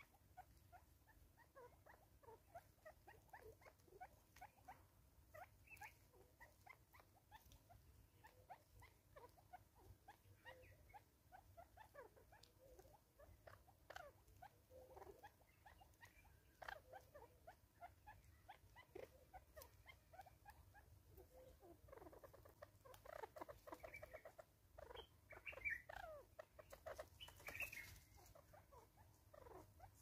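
A Natal spurfowl and a Smith's bush squirrel feeding on grain scattered on a tree stump: faint, irregular small pecks, taps and nibbling clicks, busier toward the end.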